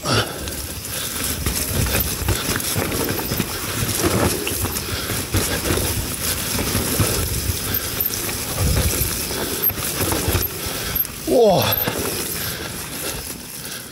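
Mountain bike descending a wet, muddy trail: a steady clatter of many small clicks and knocks from the bike's chain and parts over rough ground, with a low rumble of the tyres.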